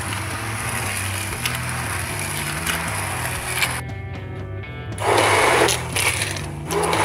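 Immersion blender puréeing carrot and rice soup in a stainless steel saucepan: it runs steadily, stops for about a second just before the halfway mark, then comes back in loud short bursts. Background music with a low, changing bass line plays throughout.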